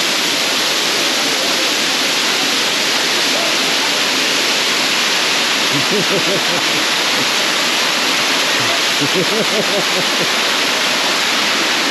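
Waterfall rushing: a steady, loud hiss of falling water, with faint voices in the background around the middle and near the end.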